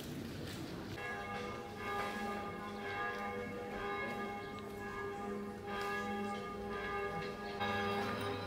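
Church bells ringing, starting about a second in: several bells struck in turn, their overlapping tones hanging on between strokes.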